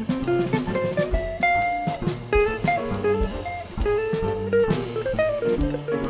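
Small jazz group playing: a guitar takes a quick single-note solo line, with double bass and a drum kit accompanying.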